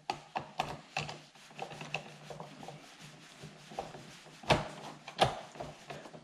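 Hand screwdriver tightening small screws that hold a plastic grille into a car's bumper fascia: a run of irregular clicks and scraping, with two louder knocks near the end.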